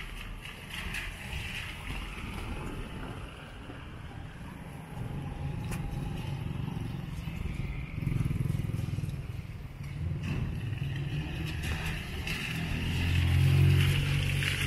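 Car passing on a rain-wet street: low engine hum and tyre hiss, swelling to its loudest near the end, over the steady noise of rain.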